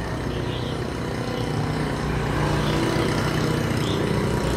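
Hikoki CG27 brush cutter's small two-stroke engine running and being throttled up, a little louder from about two seconds in. The owner says the throttle is not opening fully and the throttle cable needs adjusting.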